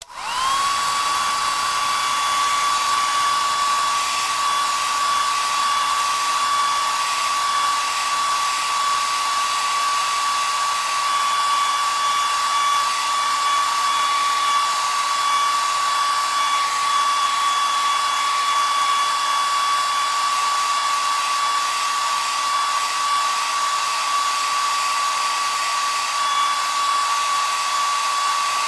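Hair dryer switched on: its motor spins up within the first half second to a steady high whine, over a constant rush of air that holds unchanged.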